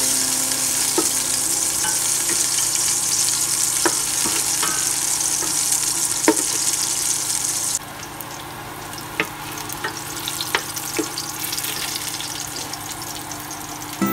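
Sliced onions sizzling in hot oil in a stainless steel pot, stirred with a wooden spoon that clicks and scrapes against the pot. The sizzle drops sharply about eight seconds in, and after that the separate spoon clicks stand out.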